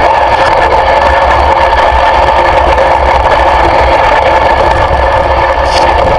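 An engine running steadily and loudly close by, with an even low throb underneath.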